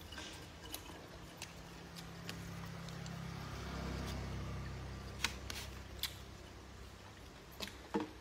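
A few light, sharp clicks, as of chopsticks tapping a plastic food tray, over a low rumble that swells to a peak midway and then fades.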